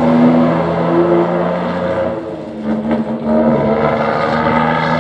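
Scania truck engine and exhaust pulling away under throttle, the steady engine note dropping about two seconds in and picking up again a second later, as at a gear change.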